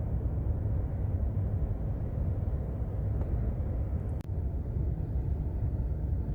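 Steady low rumble inside a truck's cab in a gale-force wind, with a brief click about four seconds in.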